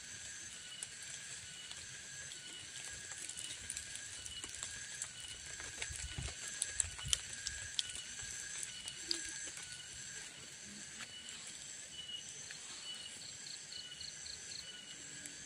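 A high-pitched animal call pulsing about once a second keeps repeating. A few light ticks and taps come in the middle, and a short fast trill comes near the end.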